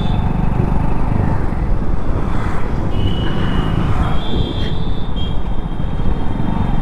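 Motorcycle engine running steadily at riding speed, heard from the rider's seat, with a dense low road and wind rumble.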